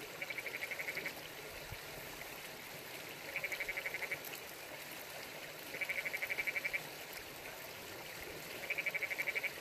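A frog calling four times, each call a rapid pulsing trill about a second long, repeated every two to three seconds.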